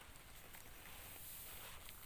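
Faint rustling with a few light scrapes near the end, over a steady outdoor hiss: dried paddy rice being scooped and handled for bagging.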